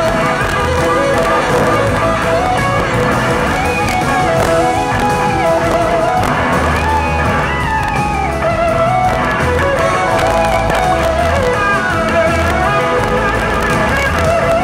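Live band music from a soul-blues band: electric guitars playing a gliding melody over a low bass pulse, with a horn section of saxophone, trumpet and trombone.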